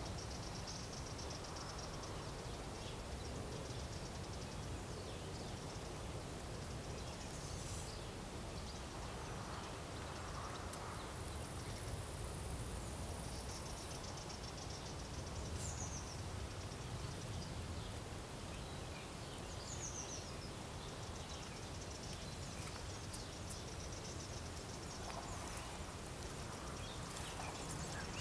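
Outdoor ambience: a steady low rumble under high-pitched insect buzzing that comes and goes, with a couple of short, falling bird chirps in the middle.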